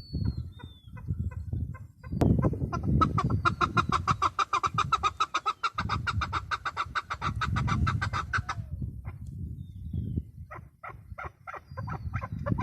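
Birds calling, with a fast, even run of rapid repeated notes lasting about five seconds from a few seconds in, short chirps, and a quicker string of sharp calls near the end. A low rumble runs underneath.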